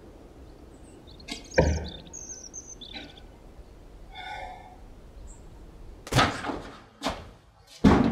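A front door being opened: a sharp thump, the doorknob and latch rattling, a short creak, then three heavy thumps, the loudest near the end.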